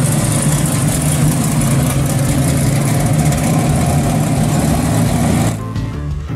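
Chevrolet Camaro SS's 350 small-block V8 running at low speed as the car drives past. About five and a half seconds in, it cuts abruptly to music.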